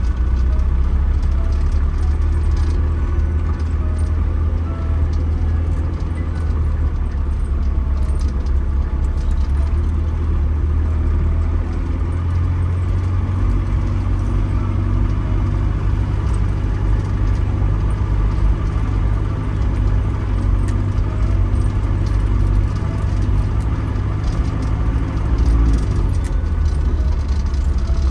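Camper van driving, heard from inside the cab: a steady low engine and road rumble, with small rattles and clicks from loose items. The rumble shifts a little about halfway through and again near the end.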